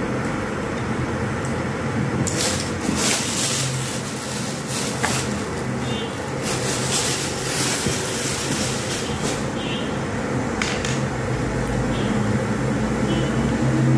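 Electric kettle heating water short of the boil, a steady low rumble and hiss. Hands handling small spare switch parts add bursts of rustling and clicking about two seconds in and again from about six to nine seconds.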